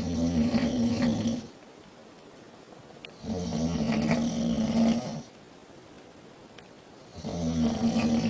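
Woman snoring in her sleep: three long, rough snores about every four seconds, the last starting near the end, with bubbles heard in the snoring.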